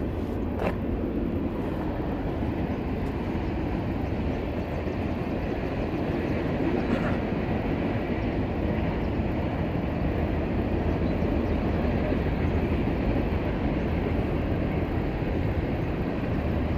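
Steady low rumbling outdoor noise, with a brief click about half a second in.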